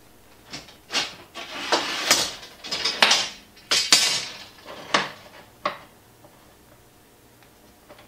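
Aluminum angle rail clinking and scraping against the metal of the CNC table as it is worked loose and slid out from under the V-groove bearings. A run of sharp metallic clatters stops about six seconds in.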